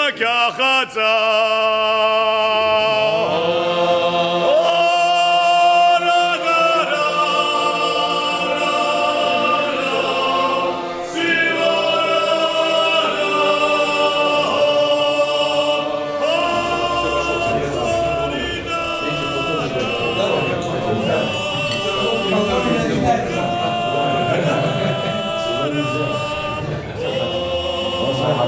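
A group of men singing together in several-part harmony, holding long sustained chords that shift from phrase to phrase.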